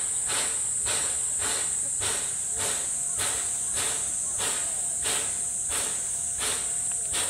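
Steady high-pitched buzz of summer insects, with rhythmic puffs about twice a second from the standing JNR Class C11 steam tank locomotive C11 325 with steam up.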